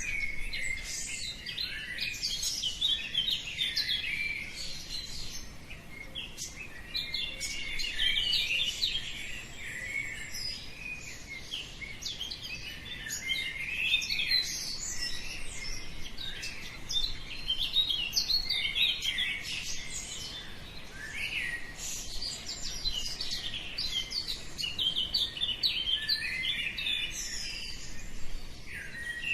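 Many small birds chirping and singing at once, a continuous chorus of short high calls and trills at dawn.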